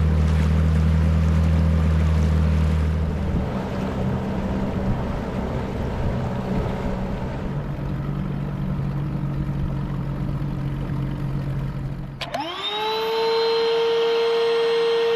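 Small motorboat's engine running steadily under way; about three seconds in its note changes and turns rougher. About twelve seconds in the engine sound cuts off and a steady held drone with overtones takes over.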